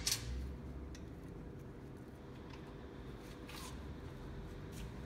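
A few sharp metallic clicks and light clinks as hand tools and bolts are handled on a steel lift table. The loudest is a double click at the start, then single clicks spaced over a few seconds, over a faint steady hum.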